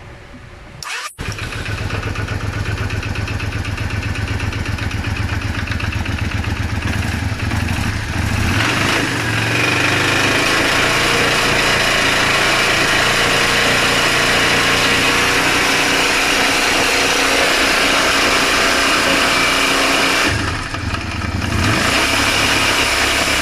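Yamaha Drag Star 400's air-cooled V-twin starting about a second in and running, then held at higher revs for some ten seconds, easing off, and raised again near the end. The engine makes an abnormal noise from inside, a sign of internal engine damage.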